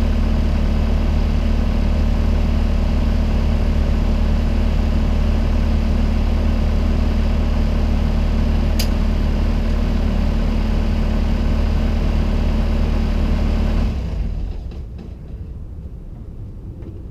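Bobcat A300 skid steer's diesel engine idling steadily, with one brief high squeak about nine seconds in; the engine shuts off about fourteen seconds in, leaving a few faint clicks.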